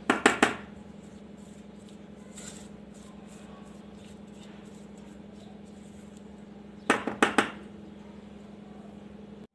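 Metal mixing bowl and spatula knocking against the rim of a metal cake tin while chocolate cake batter is scraped out: a quick cluster of three or four knocks at the start and another about seven seconds in, over a steady low hum.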